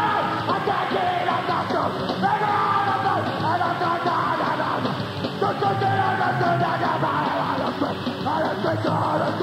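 Grindcore/hardcore punk band playing live, yelled vocals over distorted guitars and drums, with a dull, muffled tape sound.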